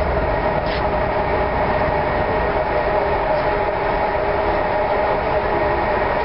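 Yukon River car ferry's engines running steadily under way: a constant mechanical drone with a few steady humming tones over it.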